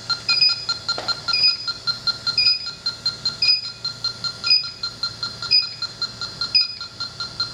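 TIF XP-1A electronic refrigerant leak detector running, giving a steady fast ticking of about five ticks a second with a short electronic chirp about once a second. The even rate means it is not detecting any R-410A leak.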